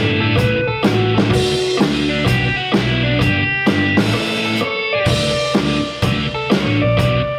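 Drum kit played with a steady rock beat, about two hits a second, along with a guitar-led rock backing track.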